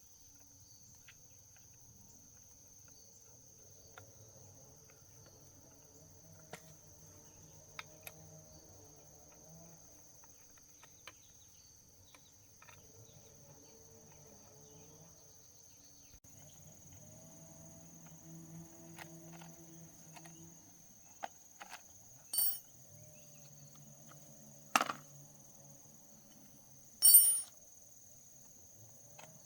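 Steady high-pitched cricket trill, with a faint low murmur underneath. A few sharp clicks or knocks come in the second half, the loudest near the end.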